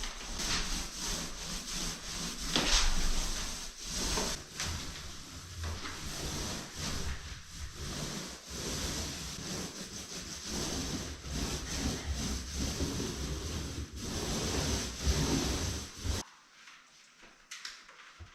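Continuous, irregular rubbing and scraping strokes on wood, hand work on a wooden surface. The sound cuts off abruptly near the end.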